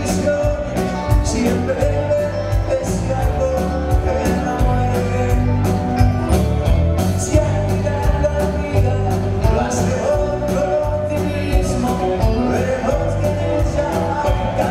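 Live band playing a song: a drum kit keeps a steady beat of about three cymbal strokes a second over electric bass and keyboard.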